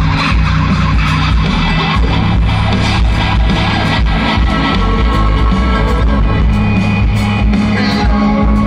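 Live rock band playing loudly, with heavy bass and a steady beat.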